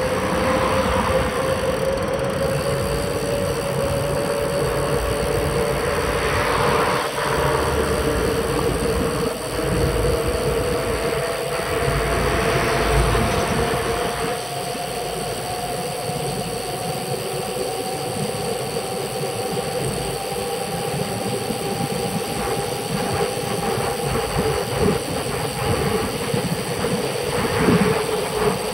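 Road bicycle riding along asphalt, heard from the moving bike: a steady rolling rumble of tyres and drivetrain with road vibration, and a hum that rises slowly in pitch.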